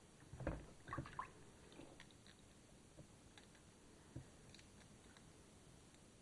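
Faint wet handling sounds of gloved hands working a fibreglass-resin end cap in a tub of caustic soda solution, freeing it from its dissolved PLA mould: a few soft squelches and clicks about half a second and one second in, then occasional small ticks.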